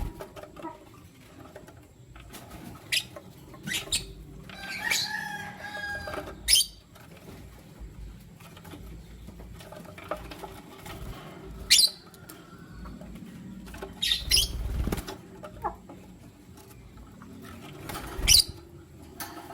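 Lutino lovebirds giving short, shrill chirps every few seconds, with one longer, drawn-out call about five seconds in.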